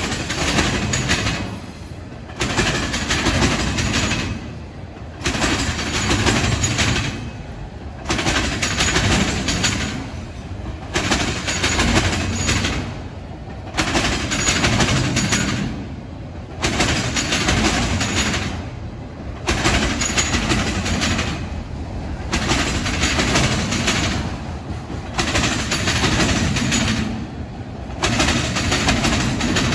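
Freight train cars rolling past on the rails, mostly long autorack cars, giving a loud rumble and wheel rattle. The sound swells and drops in a regular rhythm, about once every three seconds, as each car goes by.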